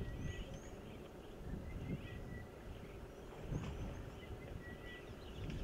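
Bush ambience: a low, uneven rumble of background noise with birds calling over it, short whistled notes repeated several times and a few higher chirps, and a couple of faint knocks or cracks about halfway through.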